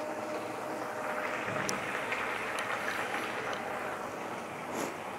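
Fish curry in a kadai on a gas burner simmering: a steady sizzling, bubbling hiss, with a few sharp little pops from the sauce.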